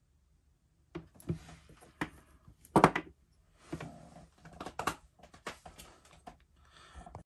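Watches being set down on a wooden desk: a string of irregular knocks, clicks and clinks, the loudest about three seconds in, after a silent first second.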